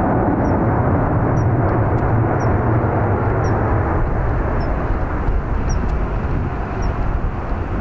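Strong wind buffeting the microphone with an unsteady low rumble, over the steady jet noise of an Airbus A350's Rolls-Royce Trent XWB engines as the airliner slows on the runway after landing. A faint high chirp repeats about once a second.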